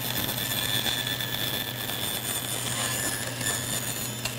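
Bandsaw running steadily while sawing a thin piece of plywood, a steady low hum under a high whine.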